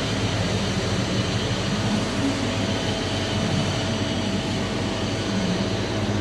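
MIG (gas metal arc) welding arc burning steadily during a weld pass: a continuous hiss over a low hum.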